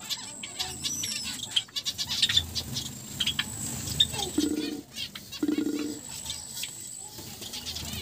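Dry grass nest material rustling and crackling as a finger pokes through a finch nest, with two short low buzzing sounds about halfway through.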